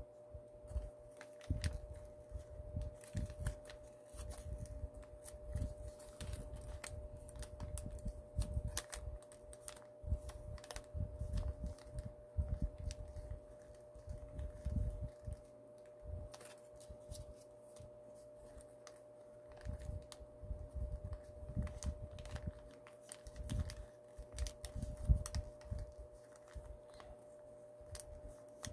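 A 15 cm sheet of origami paper being folded and creased by hand: irregular crinkles, rustles and crisp clicks of the paper, with low thuds of hands and paper against the work surface. A faint steady hum sits underneath.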